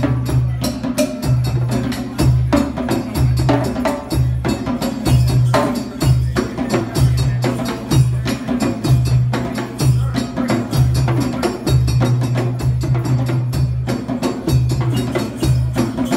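Djembe hand drums played in a fast, steady rhythm, with many sharp slaps and tones, over a repeating pattern of held low bass notes.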